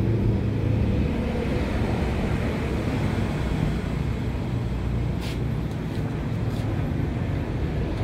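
Steady rumble of road traffic, with a few light clicks just past the middle.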